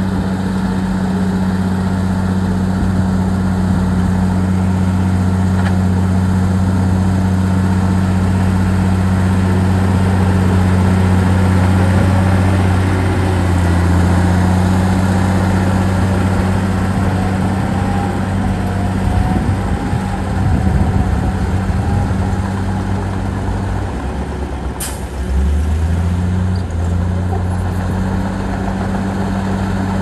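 Heavy diesel engine of earthmoving machinery running steadily under a constant load, its pitch dipping and shifting briefly a little before the end. One short, sharp noise stands out about five seconds before the end.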